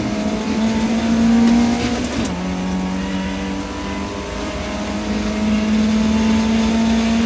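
BMW E30 318is rally car's four-cylinder engine, heard from inside the cabin, pulling hard on a straight. The revs climb, drop sharply with an upshift about two seconds in, then climb steadily again.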